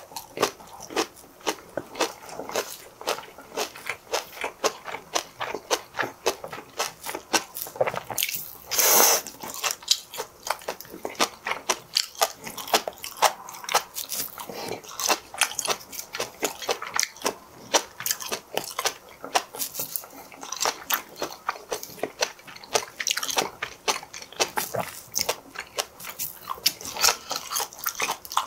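Close-miked chewing of crunchy seafood, beginning with a mouthful of deep-fried herring roe: a fast, irregular run of crackling, wet clicks, with one longer, louder crunch about nine seconds in.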